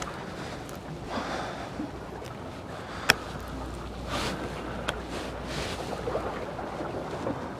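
Wind blowing across the microphone over water washing along the shore, with one sharp click about three seconds in and a fainter one nearly two seconds later.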